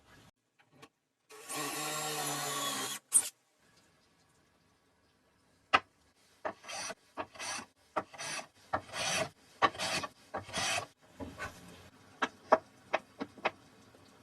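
A small power tool runs for about a second and a half, then after a pause come repeated short scraping strokes on wood, about two a second, with sharp knocks among them.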